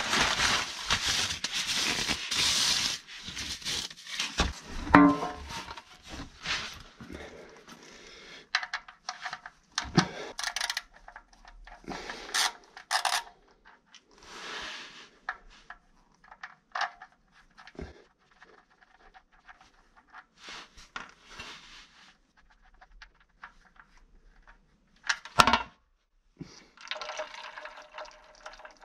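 A metal oil drain pan scraped into place on a concrete floor, then scattered clicks and knocks of a wrench working the oil drain plug loose. Near the end a sharp clank, and then warm engine oil streams steadily from the drain hole into the metal pan.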